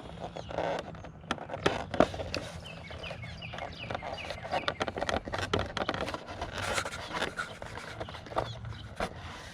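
Hand-handling noises of unplugging a wiring connector from a motorcycle's 12-volt accessory socket: scattered clicks, rattles and scrapes of plastic and metal, over a low steady hum.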